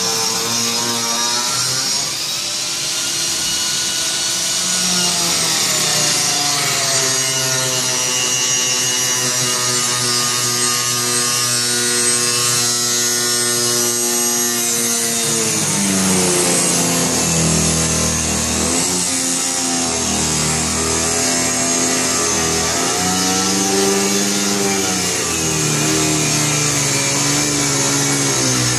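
Angle grinder with a cutting disc running continuously as it cuts along the shelf edge, its pitch sagging and recovering several times in the second half as the disc takes the load, over a steady hiss from the vacuum hose drawing away the dust.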